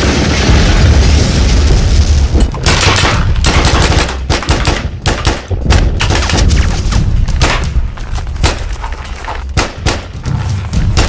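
A loud blast that rumbles on for a couple of seconds, then a long run of gunshots, sharp bangs coming several a second at irregular intervals.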